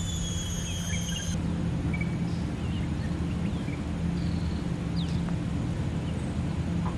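Steady low mechanical hum, like a distant engine, with scattered faint chirps. A steady high whine cuts off suddenly about a second and a half in.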